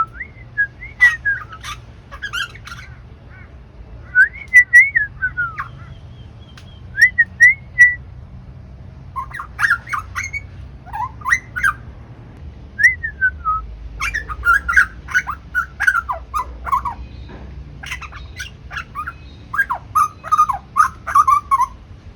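A bird singing: repeated bursts of whistled, warbling notes that glide up and down, with short pauses between phrases.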